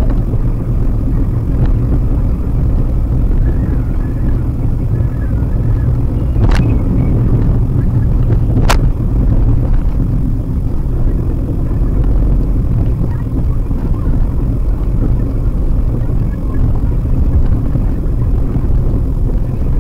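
Steady low rumble of road and engine noise inside a moving Maruti Suzuki WagonR, picked up by its dashcam microphone while driving on the highway. Two sharp clicks sound, one about six and a half seconds in and another about two seconds later.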